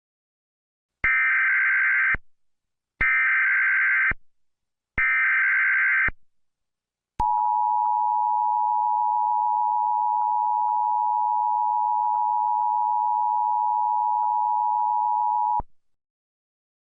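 Emergency Alert System header: three short, harsh data bursts about a second each, two seconds apart, then the long steady EAS attention tone, held about eight seconds before it cuts off.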